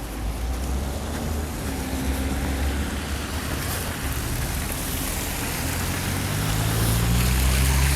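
Street traffic on a slushy road: a vehicle's engine hums close by, its pitch rising and getting louder over the last couple of seconds as it pulls away, over the hiss of tyres on wet snow.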